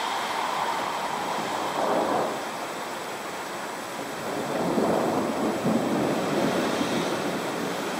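Rolling thunder over steady rain: a rumble swells about two seconds in, then a longer, louder rumble rolls through the second half.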